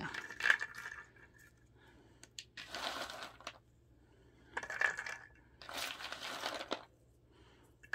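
Handfuls of shelled peanuts clattering and rattling onto a plastic sieve tray, in four separate short bursts.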